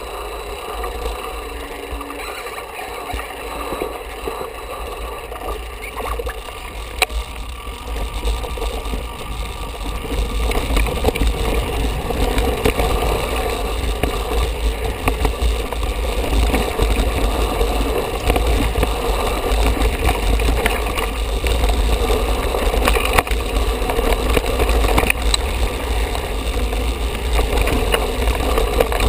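Mountain bike riding fast down a dirt and rocky forest trail: wind buffeting the handlebar-mounted camera's microphone, with the rattle and knocks of the bike over the ground. It gets louder about a third of the way in as the ride speeds up.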